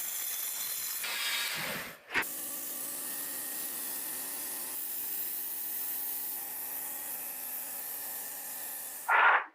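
Steady hissing spray from a nozzle. About two seconds in it drops out briefly and there is a sharp click, then the hiss resumes. A short loud burst comes near the end.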